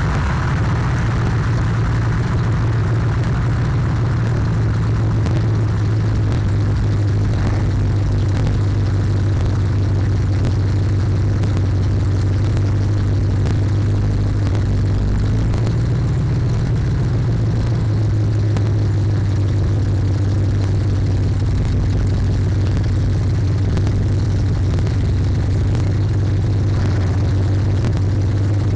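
A loud car engine and exhaust running steadily with a deep low drone, heard from inside the car, distorted by overloading the camera's microphone.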